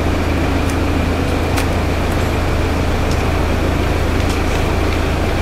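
A steady low mechanical hum over an even rush of background noise, with a few faint ticks.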